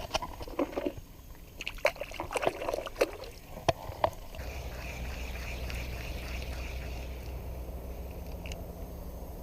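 River water splashing and sloshing, with a few sharp clicks and knocks, as a smallmouth bass is let back into the river. From about four and a half seconds in, a steady low rumble.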